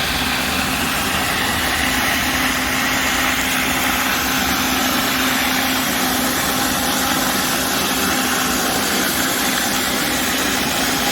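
Pressure washer running steadily: a constant engine hum under the hiss of a high-pressure water spray.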